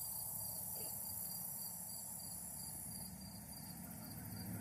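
Insects chirping in the garden: a steady high trill under a short chirp that repeats about two to three times a second.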